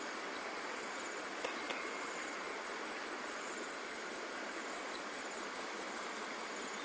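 Steady outdoor hiss with faint insect chirping in it, and two light clicks about a second and a half in.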